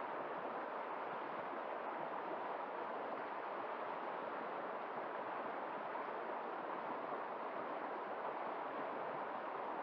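River water running over rocks: a steady, even rush of flowing water.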